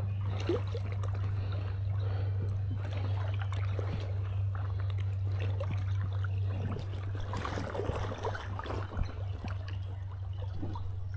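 Creek water flowing and trickling, with scattered small knocks and splashes, over a steady low hum.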